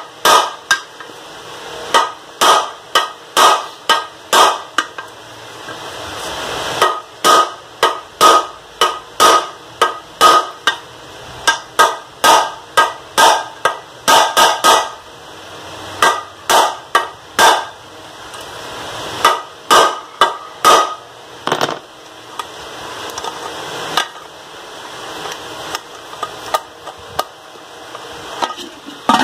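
A small hammer striking a new vent-tube fitting set into an aluminium pressure-cooker lid, giving sharp metal-on-metal blows. The blows come in runs of about two a second with short pauses and thin out near the end.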